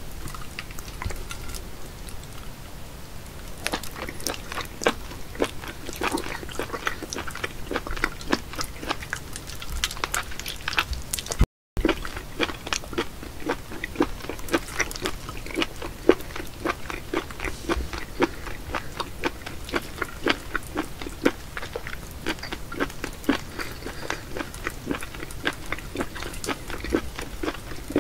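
Wet, sticky clicks and smacks of a live octopus being handled by hand, its suckers and tentacles peeling off fingers and a ceramic plate, several small pops a second. There is a brief break of silence a little before halfway.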